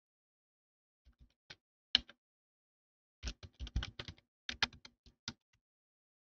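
Computer keyboard typing a username and password: a few scattered keystrokes, a sharper single click about two seconds in, then a quick run of about a dozen keys between about three and five seconds in.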